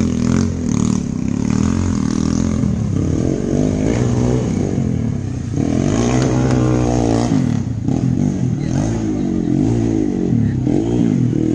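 Motorcycle engine revving, its pitch rising and falling again and again as the throttle is opened and closed.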